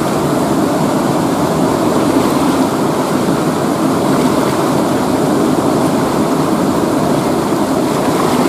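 Fast river water rushing over rocks, a steady, even noise.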